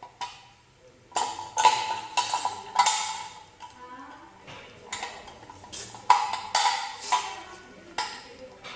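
Metal parts of a manual meat grinder knocking and clanking together as it is assembled, about ten irregular knocks, each with a brief ring.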